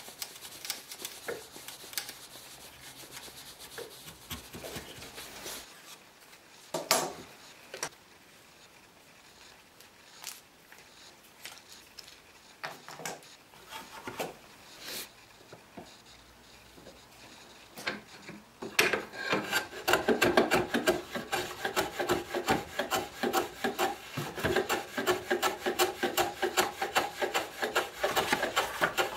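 Hand woodworking on pine: light chisel paring cuts, then a piece of wood rubbed in strokes on a sheet of sandpaper. From about 19 seconds in, a louder, fast run of back-and-forth scraping strokes on the wooden frame.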